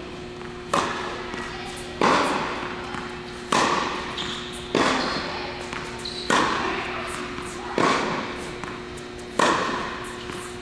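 Tennis balls struck by rackets in a rally: seven sharp pops about a second and a half apart, each ringing out in a large indoor tennis hall.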